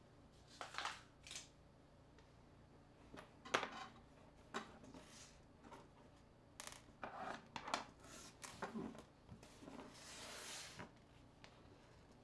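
Faint, scattered clicks and taps of small mobile-phone parts and tools being picked up and set down on a tabletop, with a brief rustle about ten seconds in.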